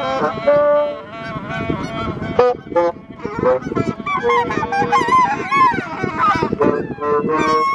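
A flock of Canada geese honking, many short calls overlapping. A reed instrument holds notes at the start, and a new held note begins near the end.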